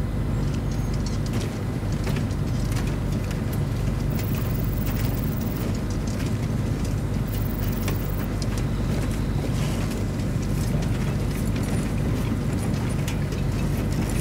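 A TV drama's soundtrack ambience with no dialogue: a steady low rumble with scattered light clicks.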